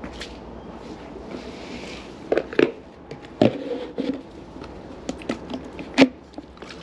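Plastic poultry waterer being handled: a series of sharp hollow knocks and clatters as its red plastic base is gripped and lifted, the loudest knock near the end.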